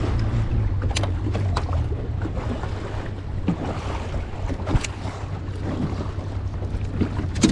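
Small waves lapping and splashing against the hull of a bass boat, with wind buffeting the microphone and a low steady hum that fades about halfway through. A few sharp clicks and knocks are scattered throughout.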